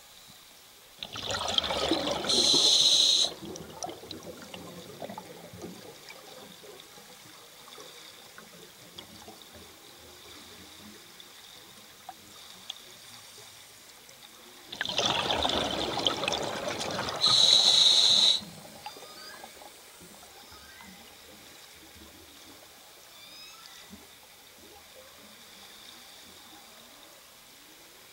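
Scuba diver breathing through a regulator underwater. Twice, about thirteen seconds apart, a gush of exhaled bubbles is followed by a short, sharp hiss of inhalation. Between breaths the water carries only faint crackling and small clicks.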